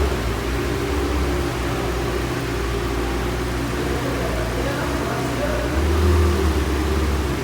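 Ferrari 488 GTB's twin-turbo V8 idling steadily, swelling slightly about six seconds in.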